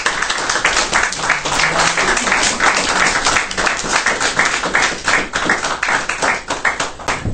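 An audience applauding: many hands clapping together in a dense patter, thinning shortly before the end.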